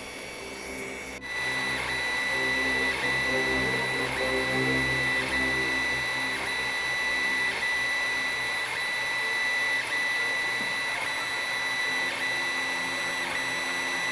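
A 3D printer printing, its stepper motors running with a steady high whine and shifting lower tones as the head moves, with a faint tick about once a second. The sound begins abruptly about a second in.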